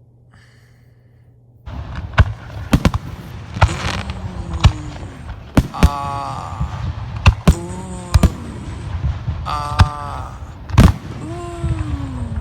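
Fireworks going off: a rapid string of sharp bangs and crackles over a steady rumble, starting suddenly about a second and a half in. Several pitched calls that rise and fall can be heard between the bangs.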